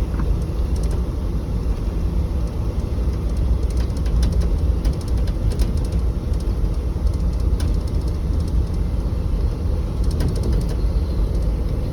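Steady low rumble of a vehicle driving, heard from inside the cabin, with faint light rattles here and there.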